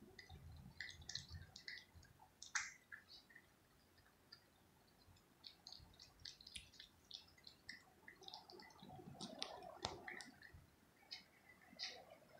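Cat eating chunks of wet food from a plastic plate: faint, irregular wet chewing, licking and smacking clicks, busier around two and a half seconds in and again near the end.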